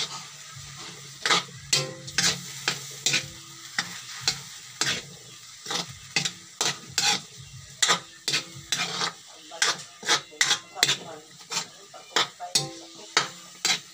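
Long metal spatula scraping and clanking against a metal wok as sliced cabbage and chili are stir-fried, irregular sharp strokes about two to three a second over a steady sizzle.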